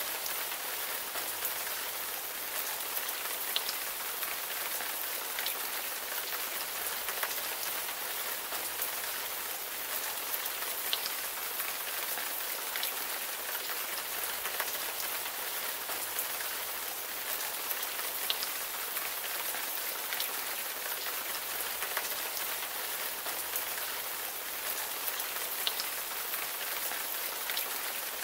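Steady rain, an even hiss with a sharper drop tick here and there.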